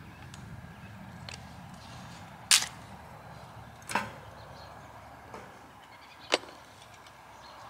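Kindling wood cracking as it is broken up by hand, three sharp cracks with the first the loudest, and a few fainter clicks before them.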